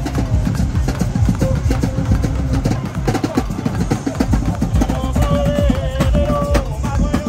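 Loud music with a heavy bass and a driving drumbeat. About five seconds in, a held melody line comes in over it.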